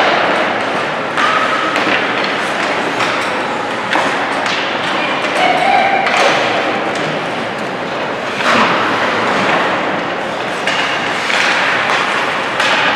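Ice hockey play in a rink: irregular thuds and knocks of puck, sticks and bodies against the boards and ice, several a second at times, over a steady background din with occasional shouts.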